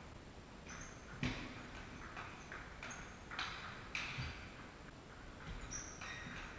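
Table tennis rally: the celluloid ball clicks sharply off the paddles and table in an irregular run of hits, the loudest about a second in. Short high squeaks of shoes on the hall floor come between the hits.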